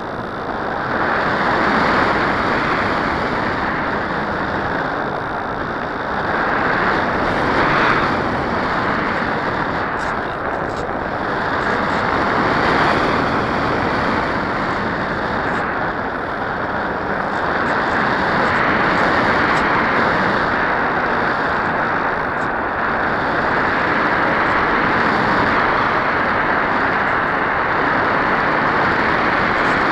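Onboard sound of a Dynam Hawk Sky electric RC plane in flight: its brushless motor and 6x4 propeller running, mixed with wind rushing over the camera's microphone. The noise is steady and swells and eases gently every few seconds as the plane banks and changes speed.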